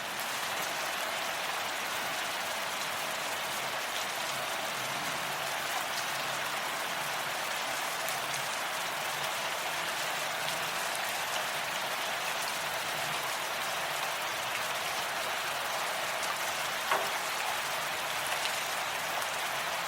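Steady rain falling, a dense even patter with scattered individual drop ticks; one louder drop hit about 17 seconds in.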